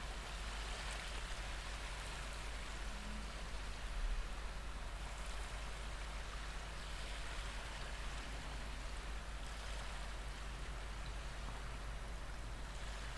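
Recorded ocean waves washing on a shore: a steady hiss of surf that swells and eases every few seconds.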